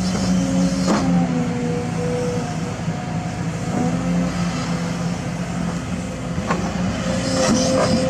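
Kobelco crawler excavator's engine running steadily while it digs and swings its bucket: a continuous hum with a few held tones.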